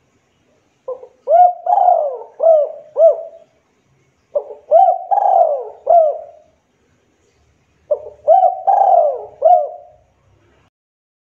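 Spotted dove (Javanese derkuku) cooing: three phrases, each a few seconds long. Each phrase is a run of short arching coo notes with one longer, falling note in the middle.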